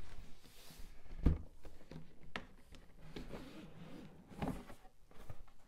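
Cardboard board-game box being turned over and handled on a wooden table, with a soft thump about a second in as it is set down, then a light click and faint scuffing as the lid is worked loose.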